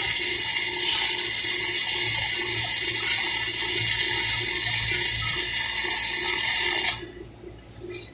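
Welding arc running with a steady, dense hiss that cuts off suddenly about seven seconds in as the arc is broken at the end of the bead.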